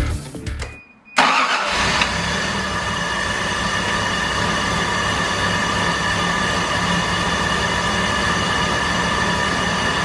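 A motor vehicle running steadily, beginning suddenly about a second in.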